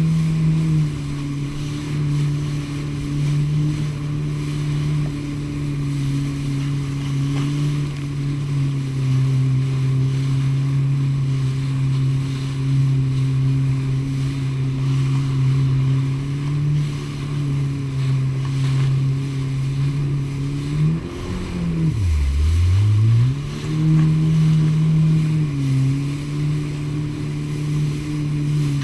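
Jet ski engine running steadily at speed, with water spray hissing under it. About 21 seconds in, the engine note drops sharply and climbs back up again within a couple of seconds.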